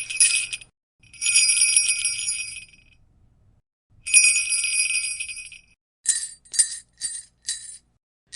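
Sleigh bells shaken in separate bursts of jingling: a short shake at the start, two long shakes of about two seconds each, then four short quick shakes about half a second apart near the end.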